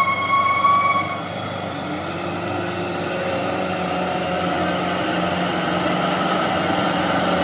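Hino Dutro truck's diesel engine pulling hard on a slippery uphill, its revs slowly rising. A high steady whistle-like tone carries over from before and stops about a second in.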